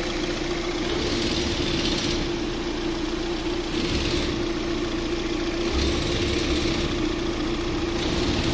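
2017 Hyundai Elantra's four-cylinder petrol engine idling with the A/C compressor engaged and the cooling fan running: a steady hum with one held tone, and a hiss that swells every two seconds or so. The compressor is running normally on a fresh refrigerant charge.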